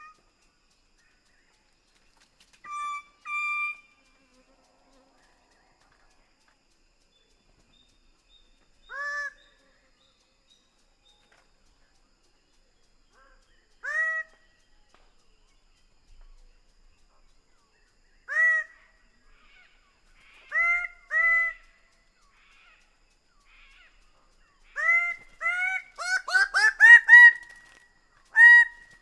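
Greater bird-of-paradise calling: loud, short calls that sweep upward in pitch, given singly or in pairs several seconds apart, then a rapid run of calls near the end.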